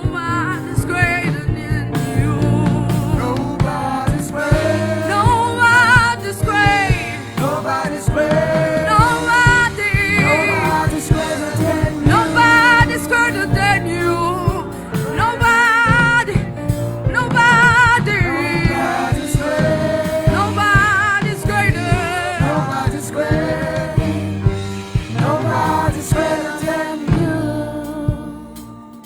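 Gospel worship song: singing with a strong vibrato over a band with a steady beat and bass. The music drops away just before the end.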